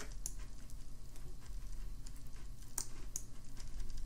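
A few faint computer mouse clicks, about three, over a steady low hum.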